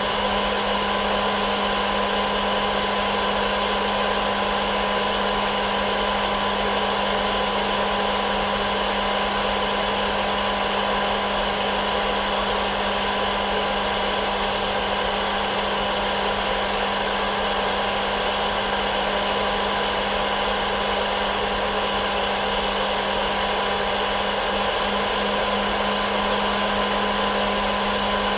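Electric hair dryer running continuously: an even rush of blown air with a steady low hum and a higher whine from its motor and fan, unchanging throughout.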